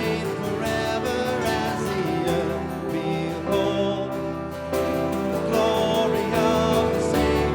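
Live worship band music, led by guitar, with a voice singing along.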